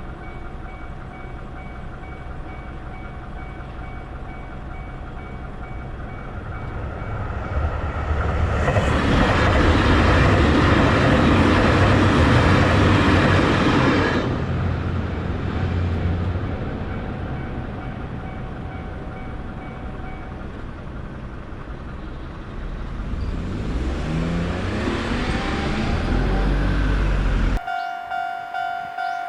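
Japanese level-crossing warning bell ringing its steady "kan-kan" while a train passes loudly, about 8 to 14 seconds in. A second train then comes up with a rising motor whine. Near the end a different crossing's bell starts abruptly with a quicker pulsing ring.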